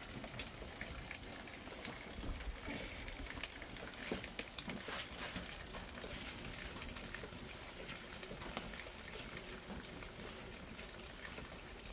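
Hands stirring and rubbing grain in a bowl: a steady gritty rustle with many small scattered clicks.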